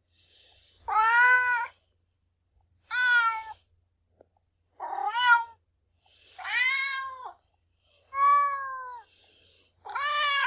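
A cat meowing repeatedly: six separate meows about a second and a half apart, each under a second long, with the pitch rising and then falling.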